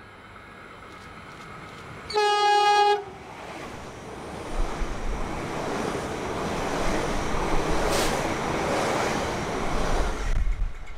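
Melbourne X'Trapolis electric suburban train sounding one short, single-note horn blast about two seconds in, then running through the station at speed. The rush of wheels and air builds, stays loud for several seconds and falls away near the end.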